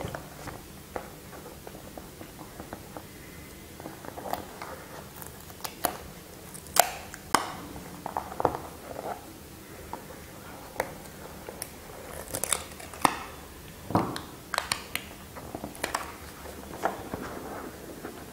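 A cardboard watch box being handled while its seal sticker is scratched and cut through with a small pointed tool: irregular light clicks, taps and scrapes, with a few sharper clicks.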